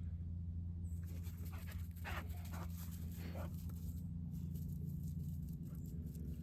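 A dog making a few short high whines and panting sounds between about one and four seconds in, over a steady low hum.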